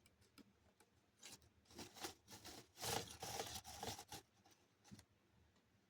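Faint scraping and rubbing strokes of hand-work as the amplifier panel is tightened into the speaker cabinet, a cluster of short rasps from about a second in to about four seconds in.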